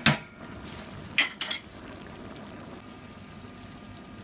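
Kitchen utensils clinking against a pot of mushroom sauce in broth as it is stirred, with liquid sloshing. There is a sharp clatter at the start and two more about a second and a half in, over a steady simmering hiss.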